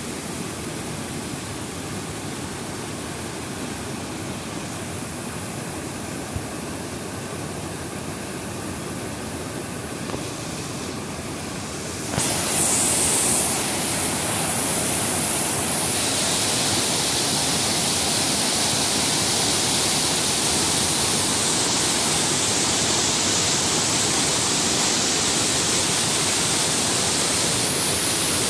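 Waterfall cascading, a steady rushing noise with no distinct events; about twelve seconds in it grows louder and brighter and stays that way.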